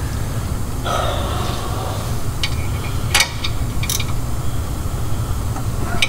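A few sharp metal clicks of a wrench on the nuts of an air-spring bracket as they are snugged up by hand, over a steady low hum.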